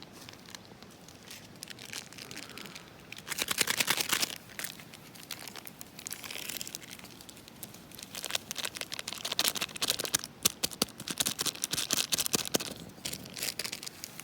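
Crinkly packaging, such as a plastic bag or wrapper, being crumpled and handled in two bouts of dense crackling, the second longer and running through most of the latter half.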